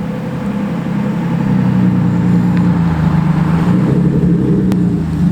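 Lexus IS300's 2JZ-GE inline-six running at low revs on its stock exhaust as the car is moved, the engine note rising a little and then holding steady.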